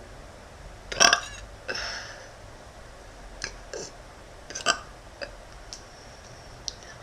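A young woman burping several times. The loudest burps come about a second in and again past the middle, with smaller ones between, and a couple of short clicks near the end.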